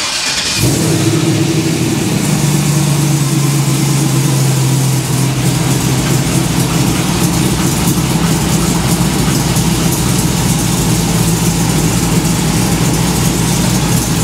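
Divco milk truck's engine starting, catching within about half a second, then idling steadily.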